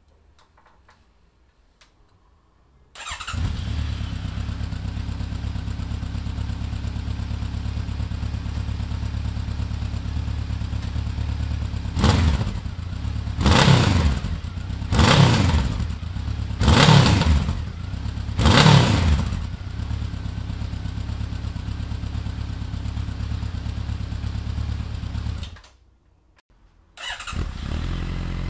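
Honda CB1100 RS inline-four engine idling steadily through its stock exhaust from about three seconds in, revved in five quick blips midway, then cut off. After a short quiet gap, the engine idles again through an R's Gear Wyvern Classic full-titanium single-megaphone exhaust.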